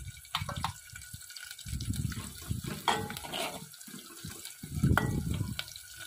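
A steel ladle stirs sliced onions and green chillies frying in oil in an aluminium pot, with scrapes and clinks of the ladle against the pot and a faint sizzle. There are two heavier stirring strokes, about two seconds and five seconds in.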